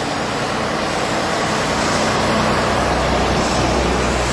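Road traffic passing, with a vintage double-decker bus approaching among the cars; it grows a little louder about two seconds in as a deep engine sound builds.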